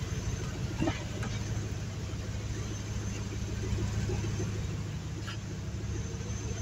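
2005 Chevrolet Avalanche 2500's V8 engine idling with a steady low hum. Two light clicks come through, one about a second in and one near the five-second mark.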